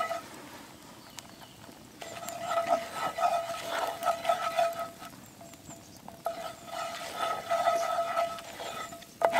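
Wooden spoon stirring and scraping a flour-and-butter roux around a cast-iron skillet. The pan squeals in a steady high tone through two long stretches of stirring, with scrapes and light knocks between them.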